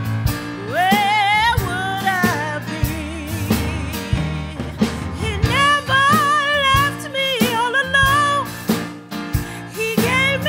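A woman singing a gospel solo into a microphone over instrumental accompaniment, holding long notes with a wide vibrato.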